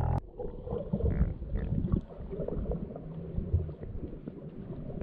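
Underwater sound heard through a submerged camera: muffled, irregular low rumbles and gurgles of moving water and bubbles.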